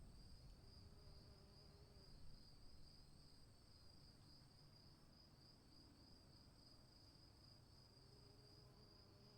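Faint insect chorus: a steady high, finely pulsing trill that does not let up. Under it, a low rumble fades away over the first couple of seconds.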